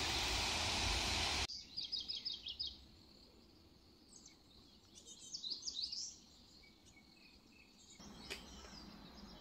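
Steady rush of a waterfall and river as an even noise that cuts off abruptly about a second and a half in. After that, small birds chirp in quick high series over a quiet background.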